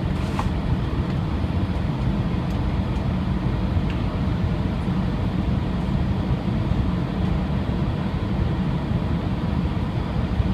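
Steady cabin noise inside an Airbus A320 on final approach: the rumble of the jet engines and airflow past the fuselage, heaviest in the low end, with a faint steady whine above it.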